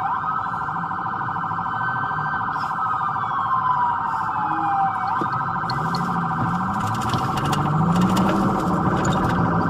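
Police sirens sounding together: one wailing slowly up and down, over another siren tone pulsing rapidly and steadily. A car engine underneath rises in pitch in the second half.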